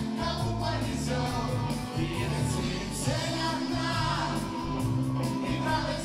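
A rock band playing a song live: electric guitars, bass, keyboards and drums, with a lead vocal over the top.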